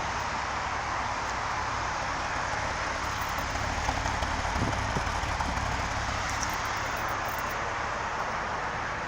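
Car engine running with a misfire after a head gasket repair, a steady low pulsing with a few uneven bumps about four to five seconds in.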